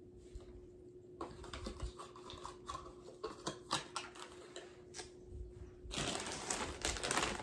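Small items being handled at close range: scattered light clicks and taps, then a burst of dense plastic crinkling from about six seconds in.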